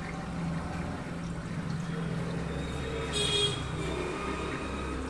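Aquarium filter running with a steady low hum and a faint trickle of water. A brief high-pitched sound stands out about three seconds in.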